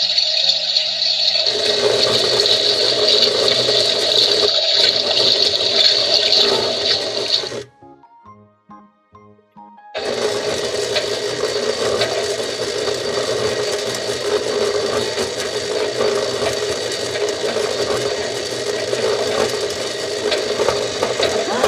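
Minnie Mouse toy washing machine running its wash cycle sound effect, a steady whooshing, water-like churn, after a short electronic jingle. The churn stops for about two seconds near the middle, with faint tones, then starts again.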